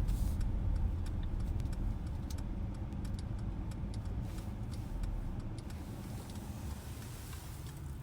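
Low, steady vehicle rumble inside the cabin of a 2020 Mercedes-Benz GLS 580, slowly growing quieter, with faint scattered ticks.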